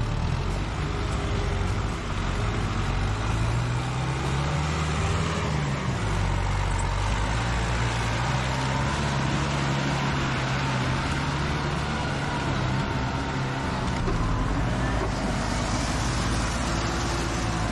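Forestry tractor's diesel engine running under load while hauling logs, a steady drone whose pitch drifts up and down a little.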